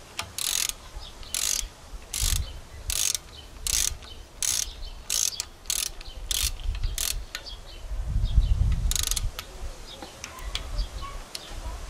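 Ratchet head of a torque wrench clicking in a dozen or so short rasping strokes as bolts on the engine's timing-chain guides are run down. A dull low rumble about eight seconds in is the loudest moment.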